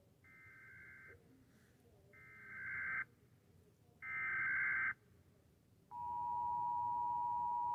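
United States Emergency Alert System alert: three SAME header data bursts, each about a second of buzzy digital warble, the first faint and the later ones louder. About six seconds in, the steady two-tone attention signal (853 and 960 Hz) starts.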